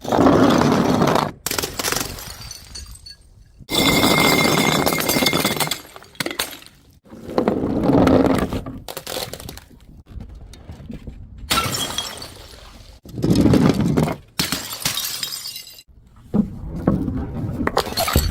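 Glass bottles smashing one after another: about six loud crashes every two to three seconds, each with shattering glass and shards clattering and tinkling, some with a brief ringing of the glass.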